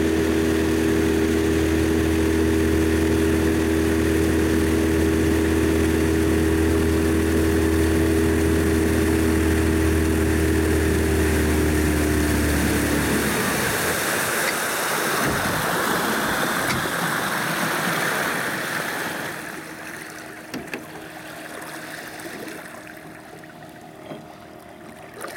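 Motorboat engine running steadily at one even pitch, then cutting out abruptly about halfway through. A rush of water and wind follows and dies away over the next several seconds.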